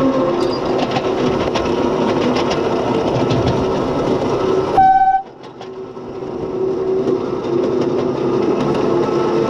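7¼-inch gauge miniature locomotive running steadily along the track, with light clicking from the wheels on the rails. About halfway it gives one short, loud horn blast, after which the running sound drops away for about a second and then builds up again.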